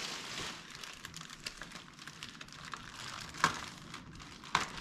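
Clear plastic wrapping rustling and crinkling as it is pulled off a new bucket seat, with two sharp clicks near the end.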